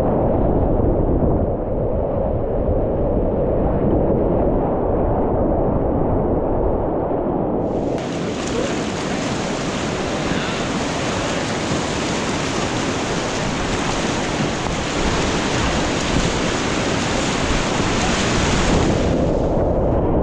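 Whitewater rapids rushing and splashing around a kayak, a dense, steady roar of water. About eight seconds in it turns suddenly brighter and hissier, then goes duller again near the end.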